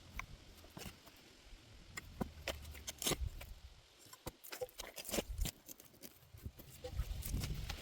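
Potato harvesting by hand: scattered clicks, knocks and scraping rustles of soil and potatoes being dug and handled, the loudest knocks about three and five seconds in, over a low rumble.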